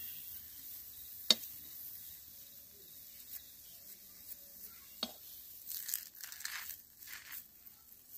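A steel spoon clicks sharply against an iron kadai twice, about a second in and again about five seconds in, followed by soft scraping and rustling as a thin rice-flour crepe is folded and pressed in the pan, over a faint sizzle.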